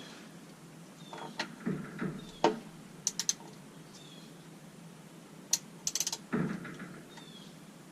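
Hand tools working on the oil drain plug of a 2.7 L EcoBoost engine: scattered sharp metallic clicks, with quick clusters about three and six seconds in, and a few duller knocks.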